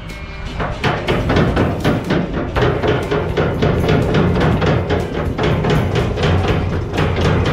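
Sugar beets tumbling out of a Cat 950K wheel loader's bucket into a dump trailer body: a dense, irregular clatter of thuds that starts about a second in, over the loader's diesel engine running steadily.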